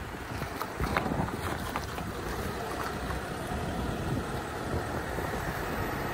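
Mitsubishi Triton pickup driving on a paved road: a steady rumble of road and wind noise, with wind buffeting the microphone and a few light clicks in the first couple of seconds.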